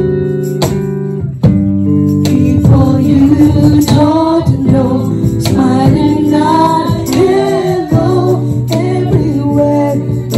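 A group of mostly female voices sings a Christmas carol to a strummed guitar and a steady cajón beat. The guitar plays alone for about the first two seconds before the voices come in.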